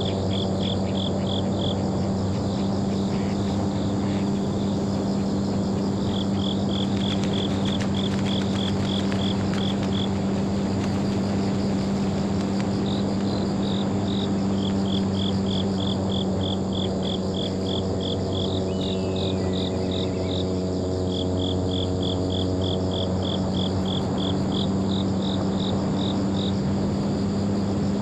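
Insects chirping in repeated trains of short, even pulses, about four a second, that start and stop every few seconds, over a steady low drone.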